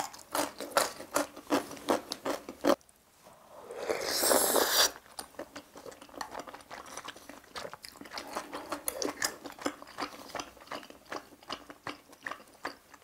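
Close-up mouth sounds of eating budae-jjigae with ramen noodles: quick wet chewing clicks, a loud slurp lasting about a second at around four seconds in, then steady chewing again.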